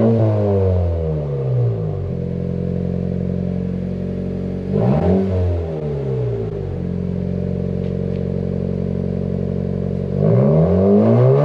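2018 Honda Civic Si's turbocharged 1.5-litre four-cylinder idling through a freshly fitted Greddy DDR cat-back exhaust and being revved. It comes down from a rev at the start, is blipped up and back to idle about five seconds in, and rises on another rev near the end.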